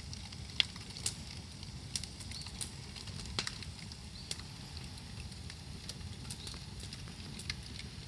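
Bonfire of moso bamboo crackling, with irregular sharp pops, a handful of them much louder than the rest, over a steady low rush.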